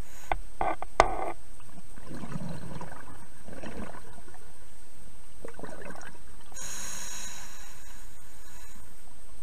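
Scuba diver breathing through a regulator, heard underwater: bubbling exhalations, then a hissing inhalation in the second half, over a steady underwater hiss. A few sharp knocks in the first second or so.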